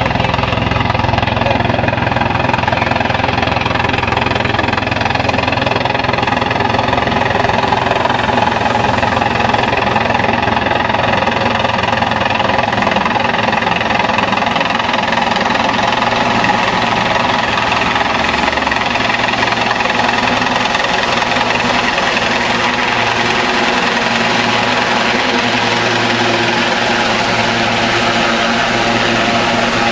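Sikorsky S-76 helicopter flying close overhead on its approach to land: main-rotor chop over the steady whine of its twin turbine engines, loud and even throughout.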